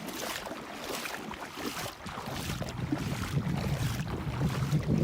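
Water splashing and lapping around a kayak. From about halfway through, wind rumbles on the microphone and grows louder.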